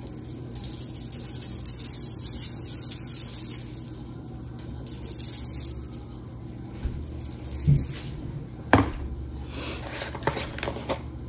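Seasoning shaken from plastic spice shakers onto raw chicken on foil: a light hiss of sprinkled granules in bursts. About eight seconds in come two knocks as the shaker is set down on the counter, then more shaking from a second bottle.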